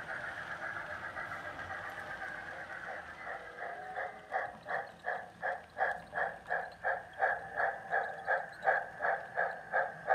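Sound system of an O scale Southern Pacific 4-8-0 steam locomotive model, playing steam sounds through its onboard speaker: a steady rushing sound at first, then from about four seconds in a regular beat of about three chuffs a second.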